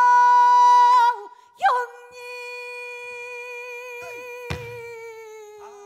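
Female pansori singer drawing out the cry 'aigo' in long sustained notes in the sorrowful gyemyeon mode. The first note breaks off about a second in, and the next slowly sinks in pitch with a slight waver. A single stroke on the buk barrel drum comes about halfway through.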